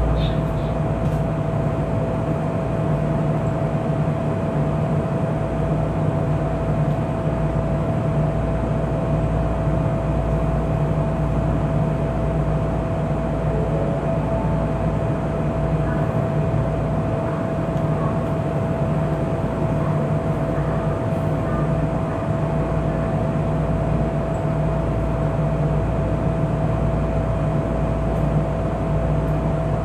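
Keisei 3500 series electric train: a steady hum with a constant high whine over a low rumble.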